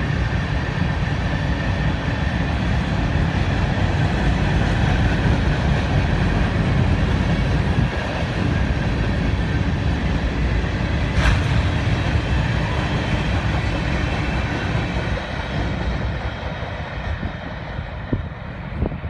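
Freight train of covered hopper cars rolling past: a steady rumble and clatter of wheels on rail, with one sharp clank a little past halfway. It fades in the last few seconds as the end of the train passes and moves away.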